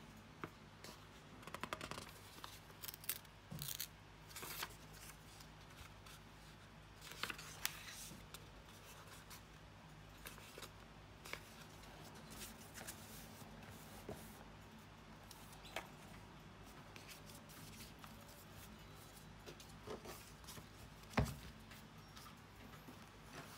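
Pages of a Karst stone-paper A5 softcover notebook rustling and crackling faintly in scattered short strokes as hands turn and handle them. A single louder knock comes near the end.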